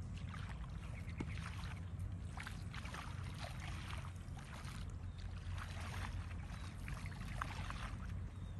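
Irregular water splashing and sloshing at the pond's edge, over a steady low rumble of wind on the microphone.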